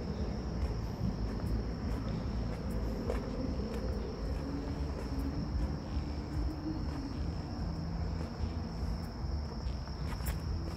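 Crickets trilling steadily at night, one high even tone, over a low steady rumble.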